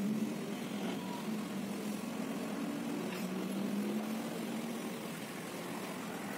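Diesel engine of a Komatsu WA180 wheel loader running as the machine drives, a steady drone that rises a little in pitch around the middle.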